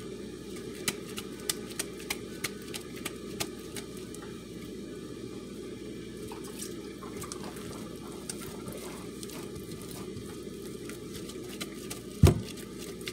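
Gloved hands working cooked kenkey corn dough into portions: a quick run of small sticky clicks and smacks in the first few seconds, then one loud thump near the end, over a steady low rumble.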